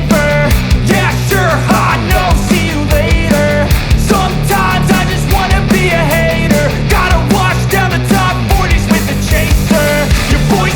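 Loud background music with a steady drum beat and a melodic line over a bass part.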